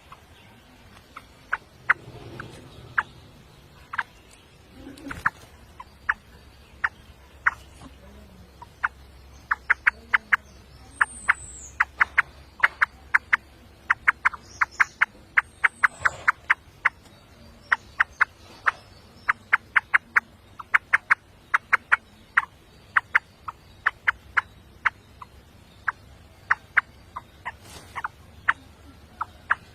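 Birds calling: a long run of short, sharp clicking calls, several a second through the middle, with two high whistles that fall in pitch.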